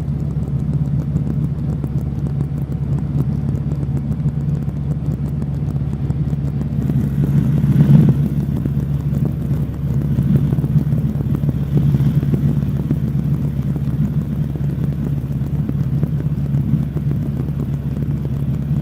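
Cabri G2 helicopter's four-cylinder Lycoming piston engine and rotor system running steadily at reduced ground RPM during the cool-down before shutdown, heard through the headset intercom. There is a brief louder swell about eight seconds in.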